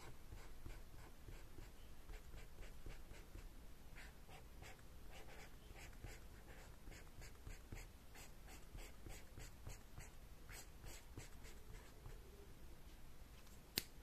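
Marker pen tip scratching across sketchbook paper in quick, short strokes, filling in colour. A single sharp click near the end, as the pen is set down.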